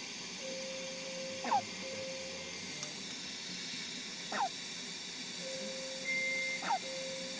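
A premature baby on CPAP hiccuping three times, about every two and a half to three seconds. Each hiccup is a brief, high squeak over the steady hiss of the CPAP airflow. Flat electronic tones from hospital equipment sound on and off in the background.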